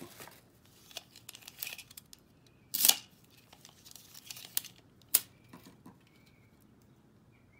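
Handling a steel tape measure and pulling its tape out along a knife blade: scattered clicks and short rattles, with a sharp clack about three seconds in and another about five seconds in.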